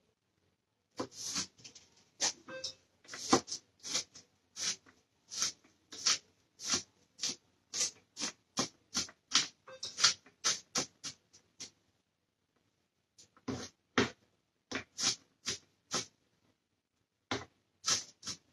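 Kitchen knife chopping onion on a cutting board: a steady run of sharp knocks, about three a second, pausing twice briefly.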